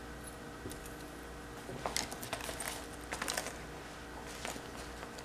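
Small items being handled and shifted on a tabletop: light clicks, taps and rustles in a few short clusters, starting about two seconds in.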